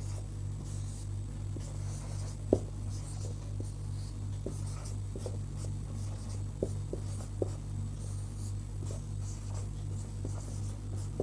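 Marker pen writing on a whiteboard: faint scattered strokes and small taps, over a steady low hum.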